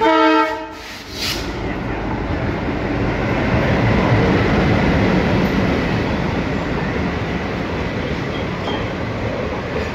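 A WDM-3 ALCO diesel locomotive gives one short horn blast, then runs past hauling passenger coaches. Its engine and rolling wheels build to their loudest about four seconds in as it passes, then give way to a steady rumble of coach wheels on the rails.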